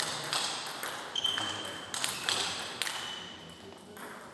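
Table tennis rally: a quick string of sharp clicks as the celluloid-type ball hits the paddles and table, about two a second, echoing in a large hall, stopping about three seconds in as the point ends. Two short high squeaks sound during the rally.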